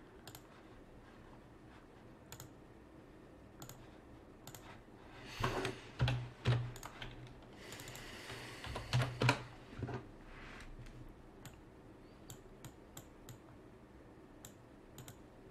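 Scattered clicks of a computer keyboard and mouse, with a few louder knocks and a short rustle about halfway through.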